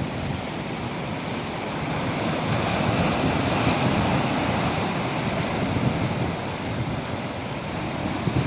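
Ocean waves washing on the shore, with wind noise on the microphone; the surf swells to a peak about halfway through and then eases off.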